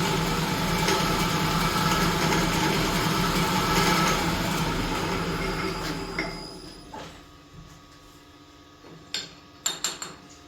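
Manual milling machine spindle running with a 5 mm carbide end mill, the cut through the blade finished, then switched off and winding down about six seconds in. A few light clicks and knocks near the end.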